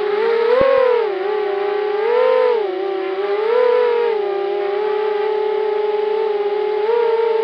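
Motors and propellers of a 250-size quadcopter whining, recorded by the camera mounted on the quad. The pitch swells up and back down several times as the throttle changes, and holds steady for a couple of seconds in the second half.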